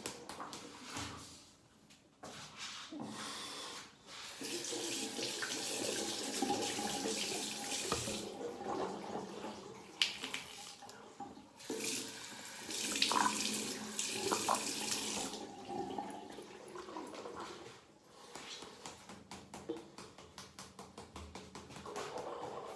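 Bathroom tap running into a sink in two long spells, with splashing as water is used at the basin. Near the end there is a quick run of light knocks as a wet toothbrush is shaken and tapped dry.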